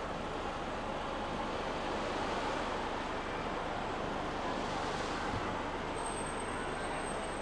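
Motor yacht's engines running at low speed while it manoeuvres to dock: a steady rumbling rush with no sudden changes.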